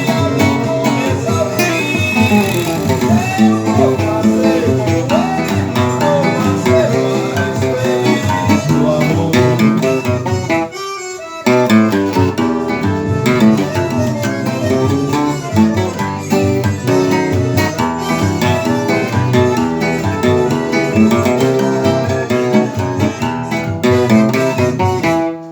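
Music: a steel-strung seven-string acoustic guitar playing a Northeastern Brazilian tune, with a brief break about eleven seconds in.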